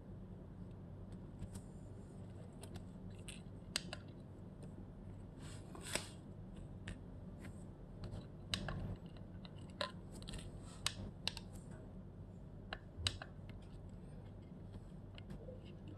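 Scattered sharp plastic clicks and short rubbing noises as fingers press buttons on and handle BSIDE ESR02 Pro component testers, over a faint steady low hum.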